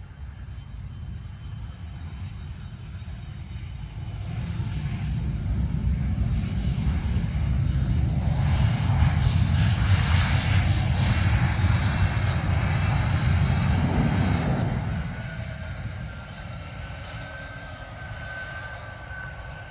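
Business jet's engines passing on the runway. The jet noise builds from about four seconds in, is loudest between about eight and fourteen seconds, then drops off, leaving a high falling whine.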